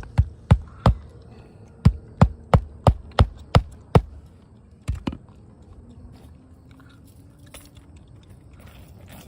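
Hammer striking roofing nails into a 3-tab asphalt shingle: a run of sharp blows at about three a second, three then a short pause then seven more, with two further strikes about five seconds in.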